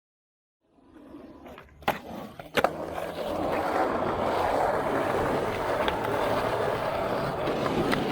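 Skateboard sound: two sharp clacks of the board a little under a second apart, then the wheels rolling steadily on hard ground.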